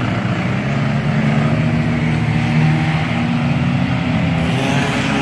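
Engines of enduro stock cars racing around a short oval, a steady blend of engine drone whose pitch drifts as the cars pass and accelerate.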